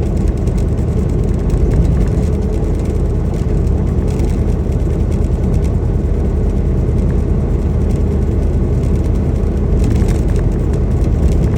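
Semi-truck on the road: a steady, loud low drone of engine and road noise, with no change through the stretch.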